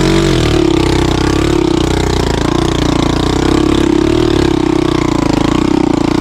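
Hartford VR 150 motorcycle's single-cylinder engine running steadily at low revs, its pitch wavering gently up and down as the bike is worked slowly through slippery mud.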